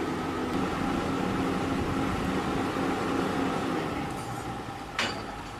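Excavator diesel engines running steadily as one machine hauls the stuck excavator out of the canal on a cable, with a short sharp knock about five seconds in.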